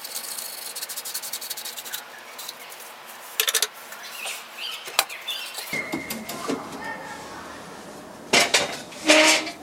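Hand woodworking handling noise: a couple of seconds of rubbing or scraping on wood, then scattered clicks and knocks of wooden pieces and tools being set down, with two louder clatters near the end.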